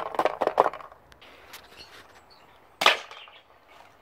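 A cardboard box handled and rustled at the start, then a single sharp BB gun shot about three seconds in.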